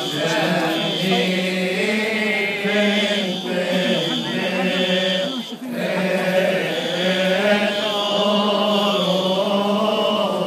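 Coptic Orthodox congregation and deacons chanting a hymn together in unison, a slow, drawn-out melody with a brief break about five and a half seconds in.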